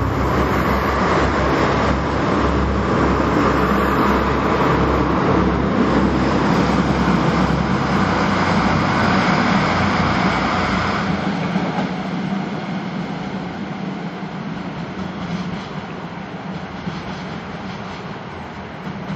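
Kyoto Tango Railway KTR8000 diesel railcar's engines running hard as the train pulls away along the track. The low engine beat drops off sharply about eleven seconds in, and the sound then fades as the train recedes.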